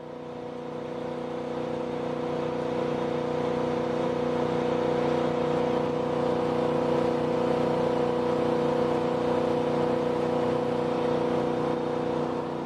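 Jet boat engine running at a steady cruising speed, one even drone that fades in over the first few seconds and fades out near the end.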